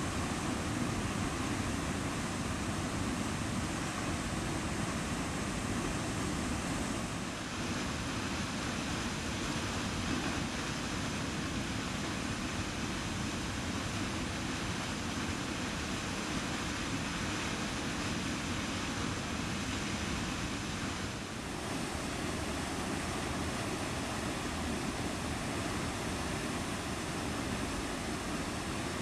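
Waterfall pouring into its plunge pool: a steady, deep rush of falling water that dips briefly twice.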